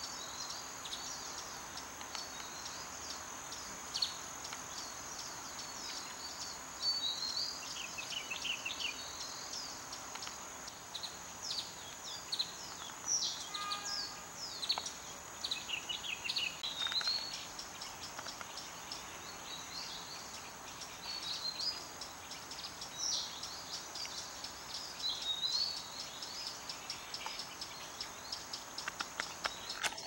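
Several forest songbirds chirping and twittering in short, quick phrases, over a steady high-pitched insect drone.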